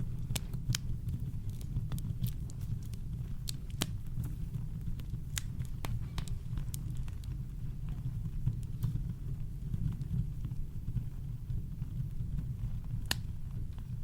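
Campfire crackling: scattered sharp pops and snaps, a few of them louder, over a steady low rumble of brown noise.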